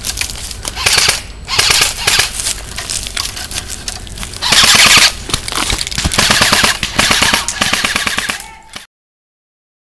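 Airsoft M4 carbine firing full-auto, a rapid clatter in uneven bursts, loudest about a second in and again around five and seven seconds in. The sound fades and cuts off abruptly just before the end.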